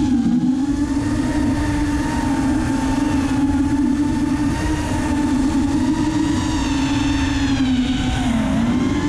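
A 5-inch FPV racing quadcopter's brushless motors and propellers (Racerstar BR2205 2300kv) whining as it flies. The pitch wavers with the throttle, dips and climbs again near the end, over a rough rumble underneath.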